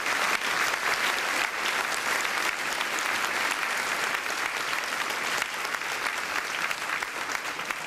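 Audience applauding, a dense steady clapping that eases off slightly toward the end.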